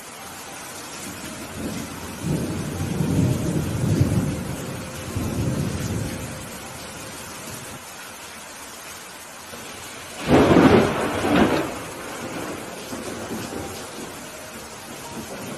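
Steady rain with thunder: a long low rumble through the first half, then a louder, sharper thunderclap about ten seconds in that rolls away over a couple of seconds.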